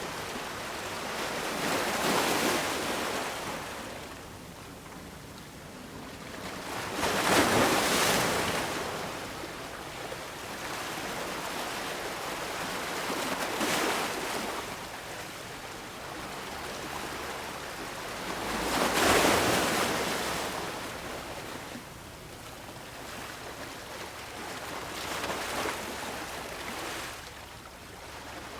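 Small waves washing against harbour rocks. Five surges swell and fall back every five or six seconds, the second and fourth the strongest.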